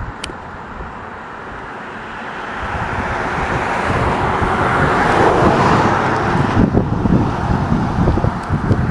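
A road vehicle driving past: its tyre and engine noise swells to a peak about five seconds in and then fades. Gusts of wind buffet the microphone near the end.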